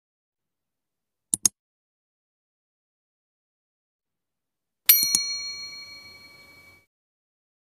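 Two sharp clicks in quick succession, then a bright bell-like ding, struck twice close together about five seconds in and ringing out for about two seconds.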